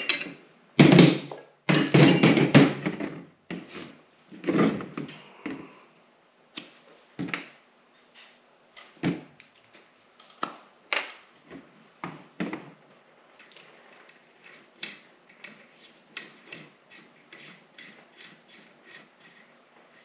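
Metal clanks and clicks of a wrench and steel hydraulic fittings being worked on a hydraulic connector block on a tabletop. The loudest clanks come in the first three seconds, then scattered knocks, and near the end a quick run of small ticks as fittings are threaded in.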